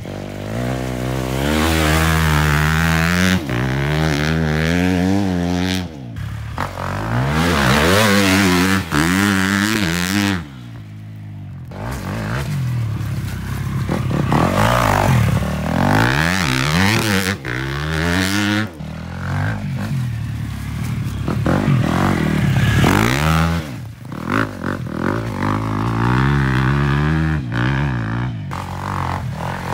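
2022 KTM 250 SX-F single-cylinder four-stroke motocross engine revving hard through the gears as the bike rides past. The note climbs with each gear, drops off between shifts and when the throttle is closed, and falls away briefly about ten seconds in.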